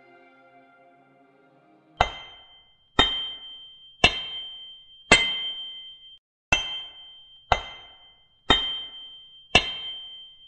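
Hammer striking an anvil: eight ringing metallic clangs, about one a second, starting two seconds in.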